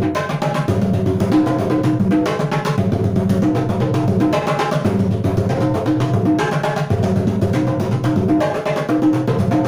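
A set of three tall conga-style drums (a triple drum) played in a continuous fast solo, mixed with music that has a steady beat and a repeating tune.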